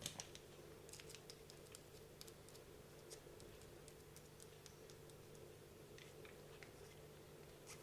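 Faint, scattered small clicks and taps of differential gears and parts being handled and set in place while greasing an RC car differential, with a sharper click right at the start, over a low steady hum.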